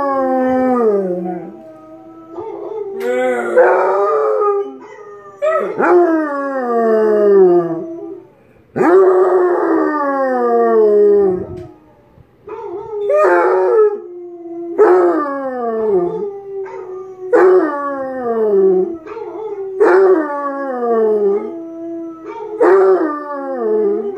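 Basset hound howling over and over, about nine long howls that each slide down in pitch, one every two to three seconds, with a steady held note sounding beneath them.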